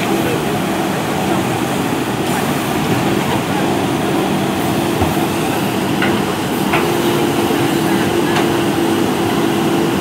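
JCB 3DX backhoe loader's diesel engine running steadily under load as the backhoe arm digs and lifts soil, with a few faint knocks from the bucket and arm.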